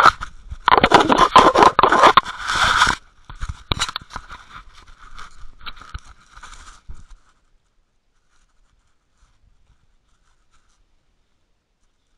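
Handling noise on the Water Wolf UW 2.0 camera: its housing scraping and rubbing against something. It is loud for about three seconds, then there are fainter scattered scrapes and clicks, and it stops about seven seconds in.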